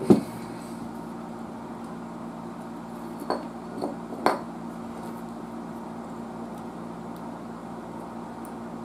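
A sharp knock right at the start, then a few light clicks and clinks about three to four seconds in, as an analog multimeter and its test leads are handled on a workbench. A steady low hum runs underneath.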